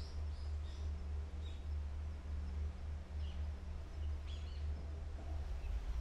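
Small birds chirping in scattered short calls over a steady low rumble.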